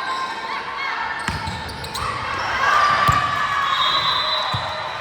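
Volleyball being played in a gym: three dull ball thuds about a second and a half apart, over voices echoing in the hall.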